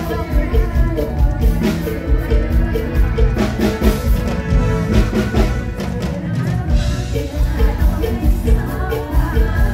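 Live full band amplified through stage PA speakers, the drum kit keeping a steady beat of about two a second under a repeating riff, with a woman singing into a microphone.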